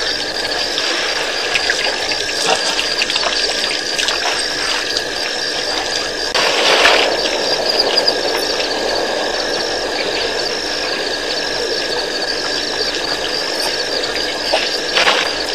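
Elephants drinking at a waterhole: water splashing and sloshing from their trunks, loudest in a swell about halfway through and again near the end. Under it runs a steady hiss with a high chirp repeating about once a second.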